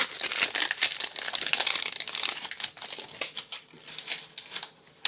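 Foil wrapper of a Pokémon booster pack crinkling as it is handled and opened. The crackling is dense for about three seconds, then sparser.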